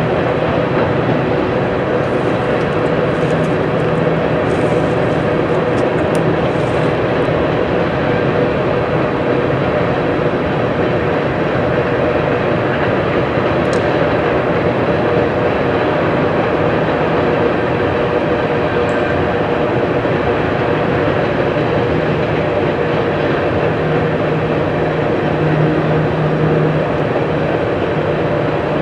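Freight train's cars rolling across a viaduct: a steady rumble of wheels on rail with a low, even hum underneath.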